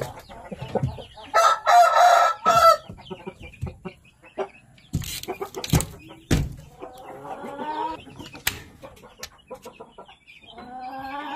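Shamo roosters crowing: three crows, one about a second in, one past the middle and one starting near the end, with a few sharp knocks in between.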